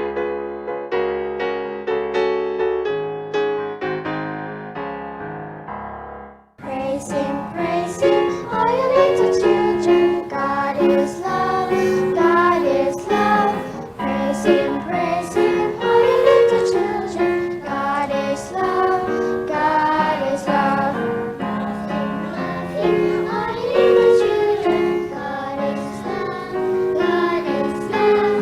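A children's sing-along song. It opens on a keyboard introduction of held chords, and about six seconds in a group of voices starts singing over the accompaniment.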